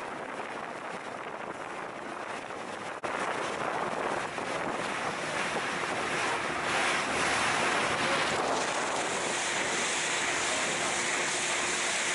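Water rushing and splashing along the hull of a moving boat, mixed with wind on the microphone. The hiss jumps louder suddenly about three seconds in and grows again a few seconds later.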